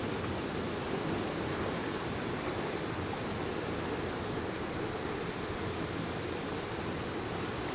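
Steady wash of sea water lapping close by, with some wind on the microphone.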